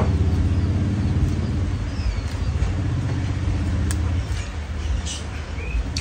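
An engine running steadily with a low, even hum that eases slightly after about four seconds.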